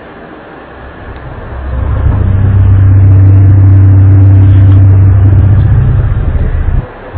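Loud, low, steady droning hum that swells up about a second and a half in over a background hiss, holds one deep pitch with a fainter higher overtone, and drops out briefly just before the end. It is one of the unexplained sky sounds reported in 2011–2012, likened to trumpets or a ship's horn.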